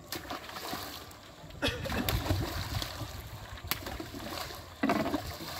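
Carp thrashing and splashing in shallow water, with several sudden sharp splashes over a rough wash of moving water.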